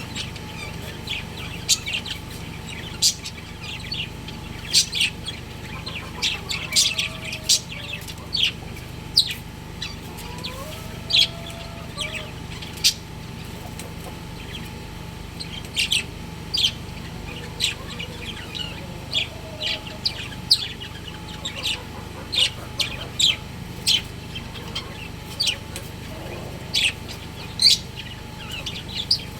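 Budgerigars chirping: many short, sharp chirps at irregular intervals, with a steady low hum underneath.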